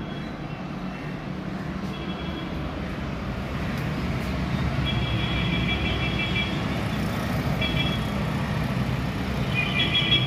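Road traffic: a steady engine rumble that grows louder over the first five seconds, with several vehicle horn toots of uneven length, the longest about five seconds in and another near the end.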